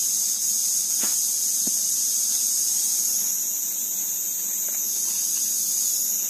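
Steady, high-pitched insect chorus droning without a break, with a couple of faint knocks about a second in.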